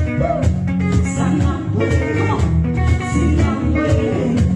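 Live band playing: bass guitar and guitar over a drum kit keeping a steady beat of about two hits a second, with a voice singing over it.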